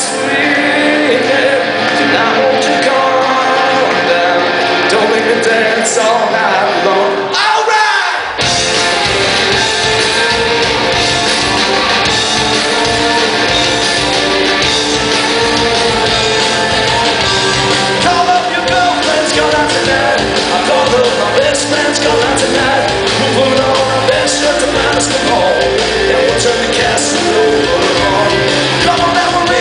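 Rock band playing live in a large hall, with singing; after a short dip about eight seconds in, the bass and drums come in and the full band plays on.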